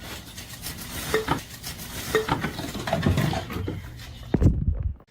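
Irregular clattering and knocking of hard objects, like dishes and cutlery being jostled, with a loud thump near the end before the sound cuts off.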